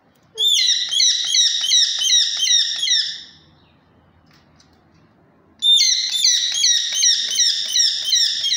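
Pet parakeet screeching: two bouts of rapid, shrill calls at about four a second, each note sliding down in pitch, with a pause of about two seconds between the bouts.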